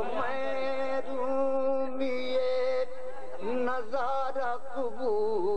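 A man singing a ghazal in tarannum, the sung style of Urdu poetry recitation: he holds one long steady note for about two and a half seconds, then moves into a wavering, ornamented melodic phrase.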